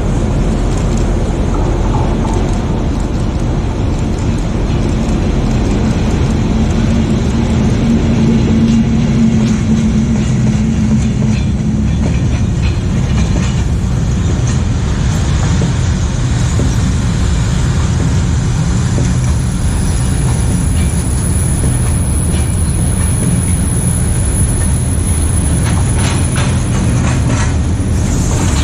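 Freight train of covered sliding-wall wagons rolling past at close range, a steady heavy rumble of steel wheels on rail. Near the end, wheels click over rail joints in a quick run of ticks.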